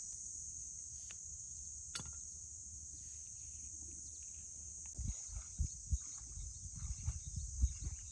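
Steady high-pitched chirring of insects such as crickets. From about five seconds in, irregular low thumps and rumbles come in.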